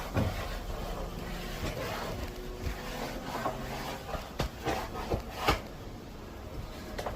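Scattered light knocks, clicks and rubbing of wooden frame-kit pieces being handled, a few sharper knocks about four and a half to five and a half seconds in, over a low steady hum.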